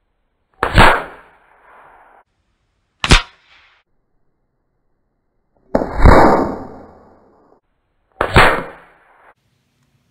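Four shots from an Air Venturi Avenger .25-caliber PCP air rifle, each a sharp crack with a short ringing tail, roughly two and a half seconds apart.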